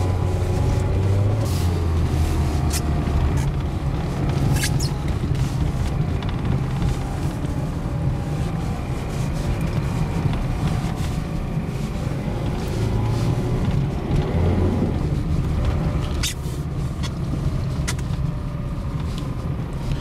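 Mazda on Dębica Frigo HP2 winter tyres driving on packed snow, heard from inside the cabin: a steady engine hum under tyre and road noise, with a few sharp clicks now and then.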